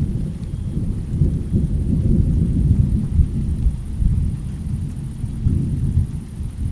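Low rolling thunder, building about a second in, peaking around the middle and swelling again near the end, over a thin steady hiss of rain.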